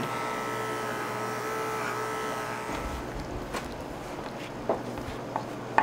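Electric pet grooming clippers running steadily as they shave a Persian cat's coat, then stopping about three seconds in. A few light clicks follow.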